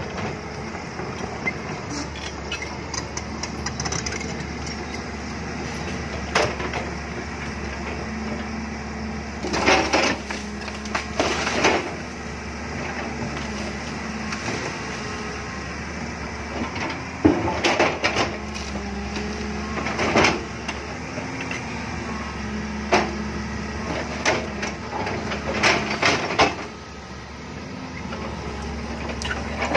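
JCB crawler excavator's diesel engine running steadily under hydraulic load as the bucket digs into a hillside of soil and rock. Short bouts of clattering and crunching from rocks and earth striking the bucket break in repeatedly, the strongest about ten seconds in and again about eighteen seconds in.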